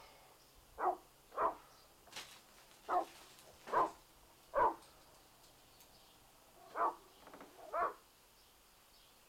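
A dog barking: about seven short single barks at uneven intervals, with a longer gap around the middle.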